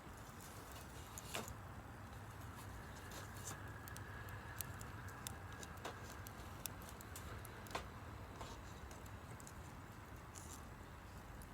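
Wood fire crackling faintly: sparse, irregular sharp pops and snaps, a few louder than the rest, over a steady low background hum.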